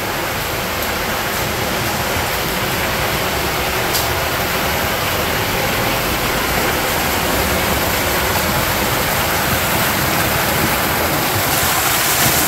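Creek water rushing through a corrugated metal culvert pipe: a steady, dense rushing noise that grows slowly louder.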